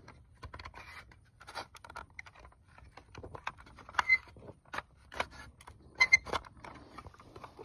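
Plastic smoke alarm being handled: irregular clicks, taps and scraping as a part that won't fit easily is worked by hand, with a few sharper clicks about four and six seconds in.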